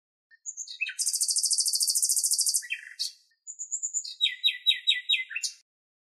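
Common nightingale singing: a fast, high, rattling trill lasting about two seconds, then after a short pause a phrase of quickly repeated falling notes.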